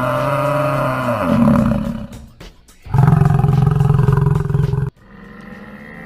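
Two long, low buffalo bellows from an animal sound effect. The first runs to about two seconds in, and the second starts about a second later and cuts off sharply about five seconds in.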